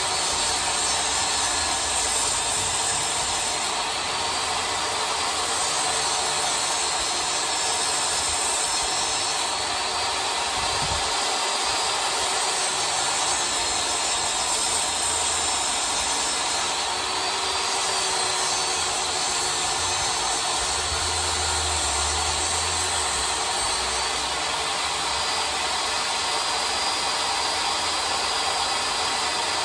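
Portable jobsite table saw's motor running steadily at full speed, a high whine over a constant rush, during a test pass with the blade lowered so no wood is cut.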